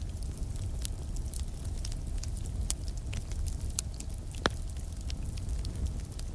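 Campfire crackling: scattered sharp pops and snaps over a steady low rumble, with one louder pop about four and a half seconds in.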